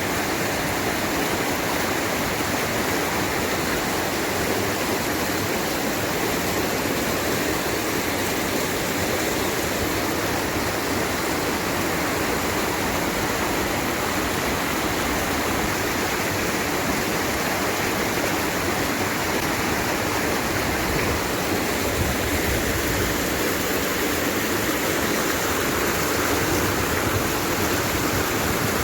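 Maligne River water rushing steadily through the canyon's rapids and small waterfalls: an even, continuous rush with no breaks.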